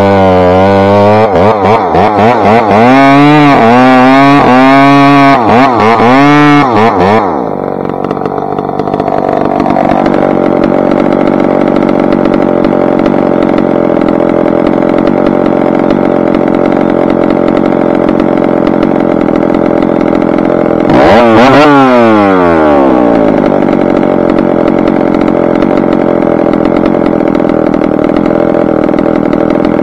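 McCulloch Pro Mac 700 two-stroke chainsaw with a 28-inch bar running at high revs in the cut, its pitch dipping and recovering again and again under load for about seven seconds. It then drops to a steady idle. About two-thirds through there is one quick throttle blip, revs rising and falling back to idle.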